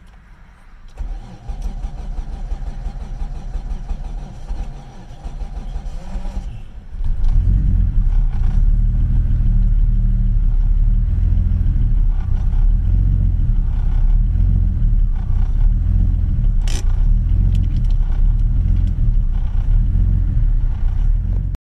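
Mitsubishi 3000GT VR-4's 3.0 L V6 on a cold start: it turns over for several seconds, then catches about seven seconds in, jumping much louder and running steadily at around 1000 rpm. The sound cuts off abruptly near the end.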